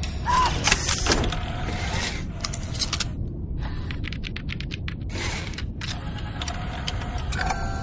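Designed robot sound effects of small mechanical clicks and servo movements over a low steady rumble. A short chirp comes near the start, a quick run of rapid clicks around the middle, and a steady electronic tone near the end.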